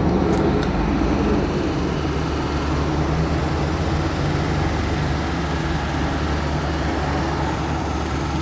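A motor vehicle engine idling steadily: a constant low hum with several held tones. A few faint clicks right at the start.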